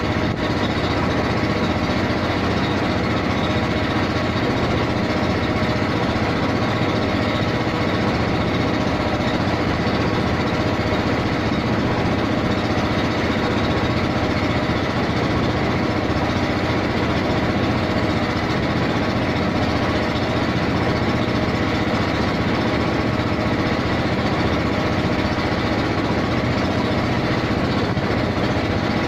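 Waterfall: a steady rush of falling water that holds even and unbroken throughout.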